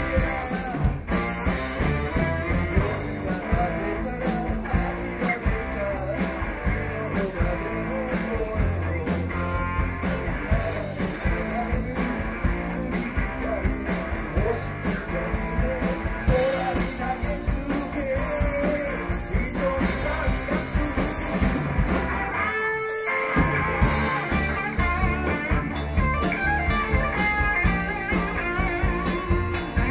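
Rock band playing a bluesy number led by guitar over a steady drum beat. The band breaks off for a moment about three-quarters of the way through, then comes back in.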